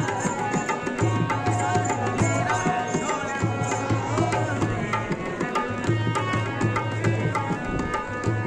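Live dholak barrel drum and harmonium playing together: a steady drum rhythm of many sharp strokes with a deep pulsing bass, under the harmonium's sustained melody.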